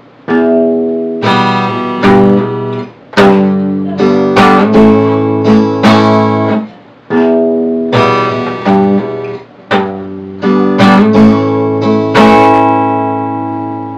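Acoustic guitar played slowly: bass notes and down-up strums through the E minor, G barre and A chords, a new chord struck every second or so. The last chord is left to ring and fade.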